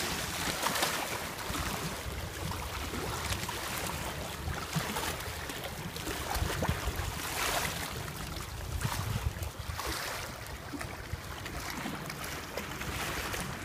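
Sea water lapping and splashing among shoreline rocks, a steady wash that swells every few seconds, with wind rumbling on the microphone.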